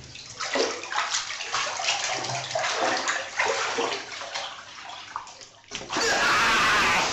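Water splashing and sloshing in uneven surges. About six seconds in, a louder burst of steady rushing noise cuts in and lasts about a second.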